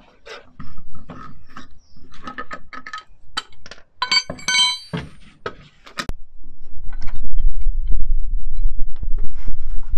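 Scattered metallic clinks and knocks from tools and wheel hardware during front-wheel removal, with a brief ringing clink about four to five seconds in. From about seven seconds in a steady low rumble takes over.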